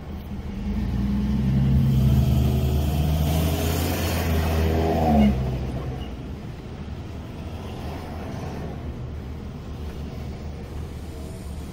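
A heavy truck's engine passing close across the front, its note rising as it accelerates, pitch edging up before it drops away about five seconds in; after that a steady low traffic rumble.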